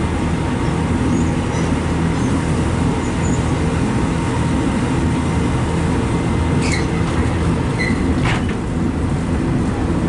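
Inside a diesel multiple-unit passenger train running at speed: a steady rumble of wheels on the track and running gear. Two brief high squeaks come about seven and eight seconds in.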